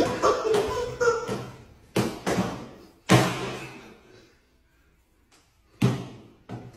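A run of sharp knocks and slams, each trailing off. The loudest comes a little after three seconds in, then a quiet gap before two more near the end.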